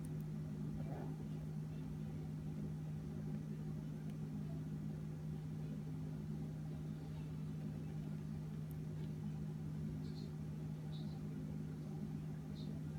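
A steady low hum throughout, with a few faint, very short high-pitched sneezes from a pet rat about ten seconds in and again near the end.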